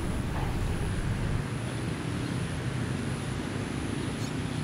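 Steady ambient city traffic noise from a busy multi-lane road, an even wash of passing vehicles with no single car standing out, and a thin high whine held throughout.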